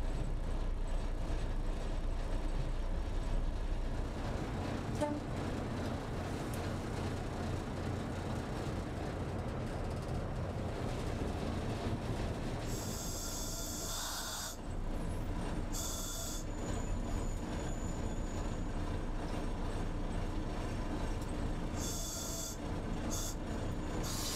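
Ex-SNCF X5852 diesel railcar heard from inside its cab: a steady low rumble of engine and wheels on the rails, with a few short high-pitched bursts about halfway through and again near the end.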